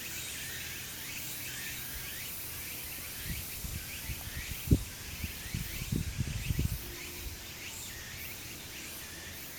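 Steady outdoor chorus of chirping insects, with a few low thumps in the middle, the loudest about five seconds in.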